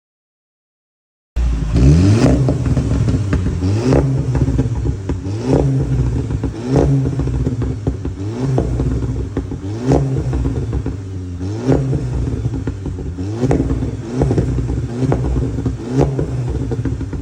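A 2015 VW Polo GTI's turbocharged four-cylinder engine, starting about a second in and revved repeatedly, roughly every second and a half, with a sharp pop or crackle from the exhaust as each rev drops away, from its stage 1 pops-and-crackles map.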